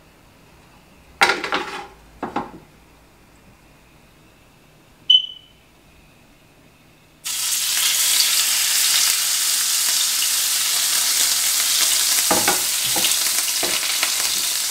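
Raw beef filet laid into a hot, square, copper-coloured nonstick skillet on a gas flame. A loud, steady searing sizzle starts suddenly about seven seconds in, with a few sharper pops near the end. Before it there are only a few short knocks in the quiet.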